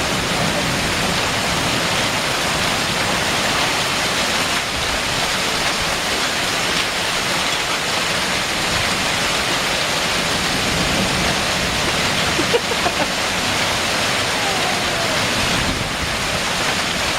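Heavy rain pouring down steadily in a severe thunderstorm, a constant rushing hiss. A brief knock sounds about twelve seconds in.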